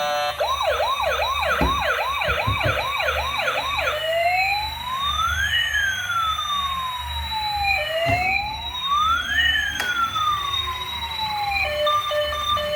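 Electronic emergency-vehicle siren: a fast warble for about four seconds, then slow wails that rise and fall, two full cycles. Near the end a beeping electronic tune starts.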